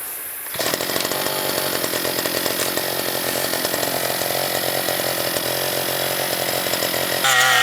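The small 35 cc petrol engine of a handheld rice-cutting machine running steadily. It starts abruptly about half a second in.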